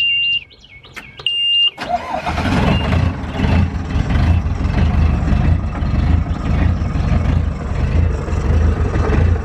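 Mustang 940E skid steer's Yanmar diesel being cold-started after glow-plug preheating: a panel beeper sounds in short beeps, then a little under two seconds in the engine cranks briefly, catches and runs steadily.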